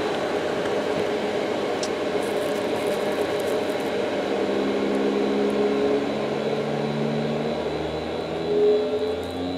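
Car HVAC blower motor running on a homemade 555-timer/MOSFET PWM speed controller: a steady rush of fan air. About halfway through, as the speed knob is turned, humming tones from the pulsed motor set in and step lower in pitch.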